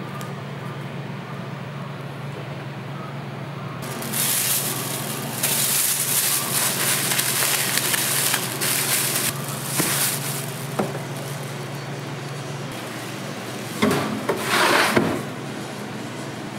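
A thin plastic bag crinkling and rustling in stretches as a ball of pizza dough is wrapped in it, over a steady low hum. A few shorter rustles and bumps come near the end.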